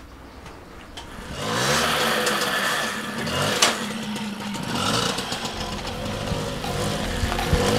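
Moped's small two-stroke engine starting up about a second and a half in, then running and revving up and down as it pulls away.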